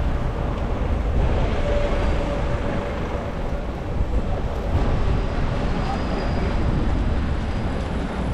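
Busy city street traffic heard from a moving bicycle: a steady rumble of engines and tyres on wet road, with wind buffeting the microphone.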